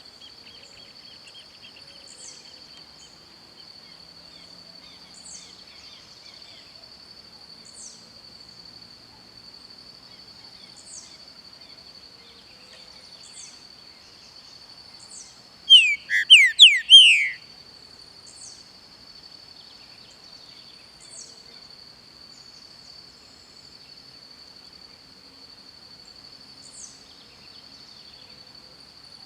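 A green-winged saltator (pixarro) sings one short, loud phrase of quick slurred whistled notes about halfway through. Behind it a steady high-pitched insect drone runs throughout, with faint high chirps repeating every two to three seconds.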